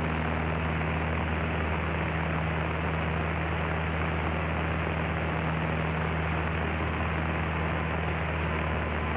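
Cessna 152's four-cylinder Lycoming engine and propeller running steadily in cruise flight, heard inside the cabin: an unchanging low hum with an even rush of air noise over it.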